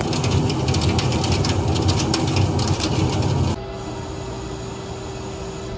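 Haas CNC lathe cutting a thread into a spinning metal part: a loud, gritty cutting noise with rapid ticking over the spindle's rumble. About three and a half seconds in the cutting noise stops abruptly, and the spindle runs on with a quieter, steady hum.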